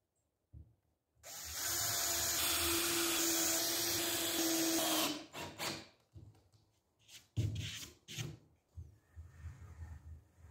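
Cordless drill running steadily for about four seconds as it bores into a plywood panel, then stopping. A few knocks and clatters follow.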